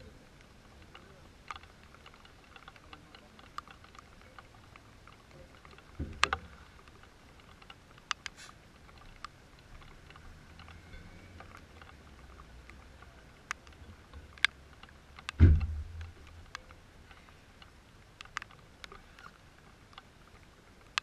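Light, irregular ticks of rain dripping and tapping close by, with two dull thumps, one about six seconds in and a louder one about fifteen seconds in.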